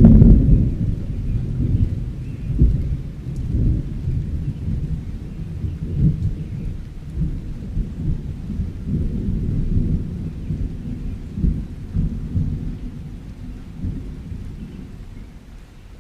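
Rolling thunder: a deep rumble, loudest at the start, that swells a few times and slowly dies away.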